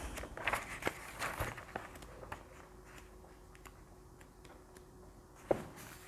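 Paper book being handled and its pages leafed through: a few soft rustles and taps in the first two seconds, then a quieter stretch, with one sharp tap about five and a half seconds in.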